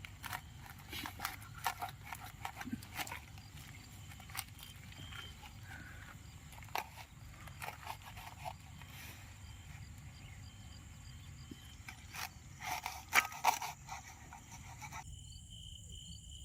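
Scattered short clicks and knocks, loudest in a cluster about 13 seconds in. Then, after an abrupt change near the end, a steady high cricket chorus with regular chirps.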